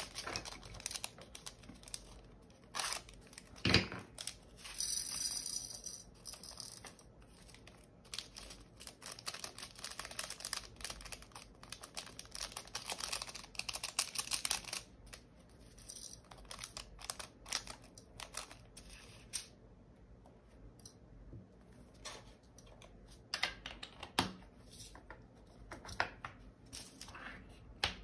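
Hands working with diamond painting drill bags and small plastic storage containers: plastic crinkling and tearing, with many small clicks and taps and a louder knock about four seconds in.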